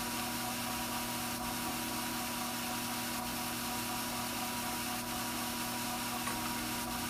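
Strauch Mad Batt'r electric drum carder's motor running steadily with an even hum, and a faint tick about every two seconds.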